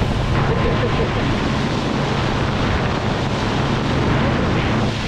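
Motorboat running at speed: a steady low engine hum under rushing wind on the microphone and the hiss of the churning wake.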